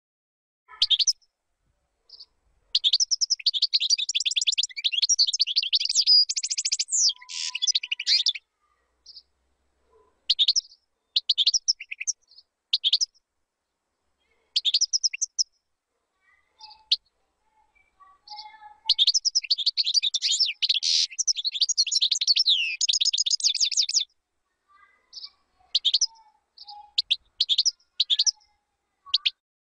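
European goldfinch singing: two long phrases of rapid, high twittering, about five seconds each, with short calls and song fragments between them.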